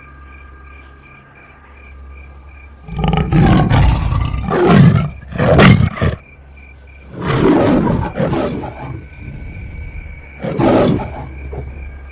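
Tiger roar sound effects: a run of loud roars starting about three seconds in, then two more after short pauses.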